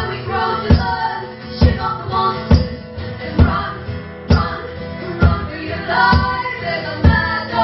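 Live band music: guitars over a steady low beat about once a second, with voices singing.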